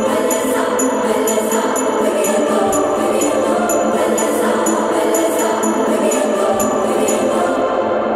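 Background music: a song with a steady jingling bell beat about twice a second over a sustained choir-like backing.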